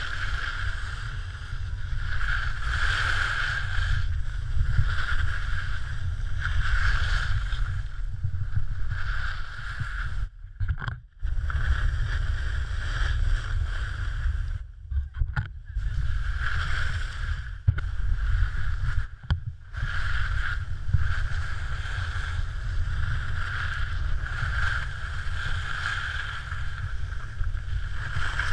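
Wind rushing over a GoPro Hero3 microphone with the hiss and scrape of skis on snow during a downhill run, a steady deep rumble under a hissing scrape that swells and fades. The sound cuts out briefly a few times midway.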